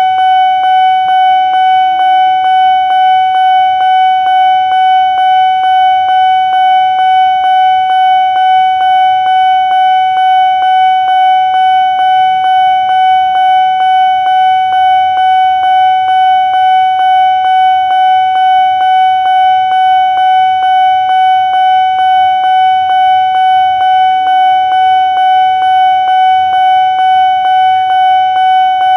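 Railway level-crossing warning bell ringing: a steady, high electronic tone pulsing evenly about twice a second, the signal that a train is coming and the crossing is closed.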